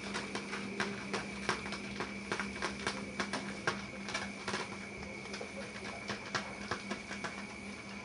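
Kittens' paws and claws clicking and tapping irregularly on a hard terrazzo floor as they scamper and play, over a steady hum.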